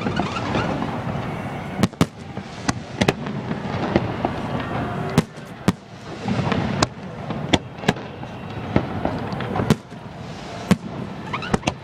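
Fireworks display going off close by: sharp bangs at irregular intervals, sometimes several within a second, over a continuous crackling.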